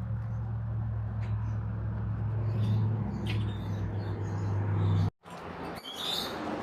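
A steady low hum with a few faint high chirps from small animals over it. The sound cuts out suddenly for a moment about five seconds in.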